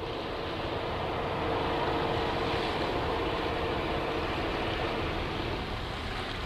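A motorboat's engine droning over a steady wash of wind and water noise; its hum swells about two seconds in and fades by about five seconds.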